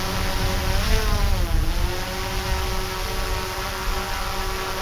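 An engine running over a low rumble. Its pitch dips and rises within the first two seconds, then holds steady.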